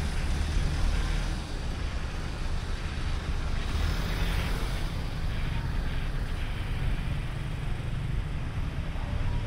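Steady street traffic heard from a moving cyclo, with low wind rumble on the microphone. A louder hiss swells for about a second near the middle.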